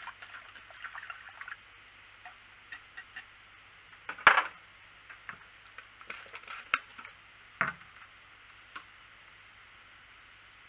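Wire whisk clicking rapidly against the ceramic slow-cooker crock as hot liquid soap is whisked, stopping after about a second and a half. A single loud clank follows about four seconds in, then a few scattered light clicks and knocks.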